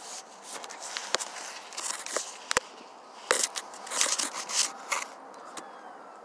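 Rustling and scraping with several sharp clicks, from someone moving about on the pavement under the truck and handling the phone that films.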